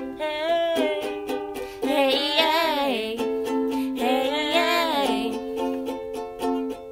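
Music: a strummed acoustic string accompaniment in a steady rhythm, with a wordless sung melody rising and falling over it twice.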